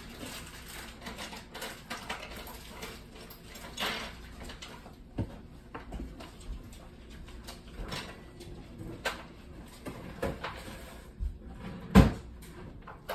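Scattered light knocks and clicks of household objects being handled and set down, with one louder sharp knock near the end.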